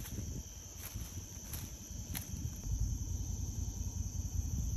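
A steady high-pitched drone of night insects such as crickets, over a low rumbling noise, with a few light ticks in the first half.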